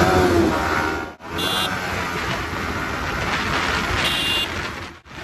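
Riding noise from a moving motorcycle, wind and engine together as a steady rush, with two short high-pitched beeps about two and a half seconds apart.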